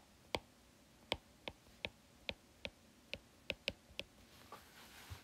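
About a dozen faint, sharp clicks at an irregular pace, the kind made by handling a computer or tablet while writing notes, with a faint hiss near the end.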